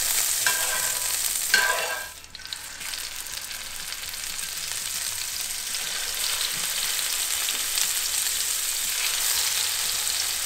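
Speckled trout fillets frying in butter and olive oil in a hot cast-iron skillet: a steady sizzle that dips briefly about two seconds in, then grows louder as the fillets go into the fat.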